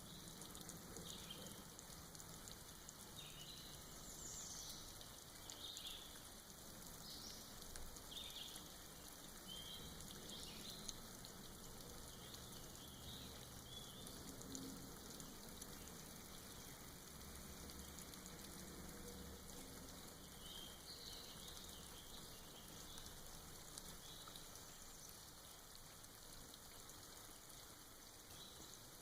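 Faint, steady patter of soft rain dripping off moss in a forest, with short high bird chirps now and then, most of them in the first half.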